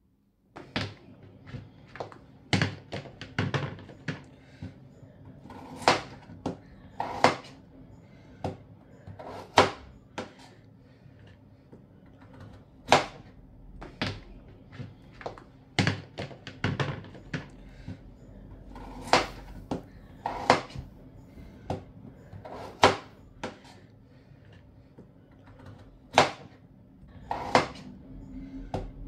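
Chef's knife cutting peeled potatoes into chunks on a bamboo cutting board: irregular sharp knocks, about one a second, as the blade goes through the potato and strikes the board. A faint steady hum sits underneath.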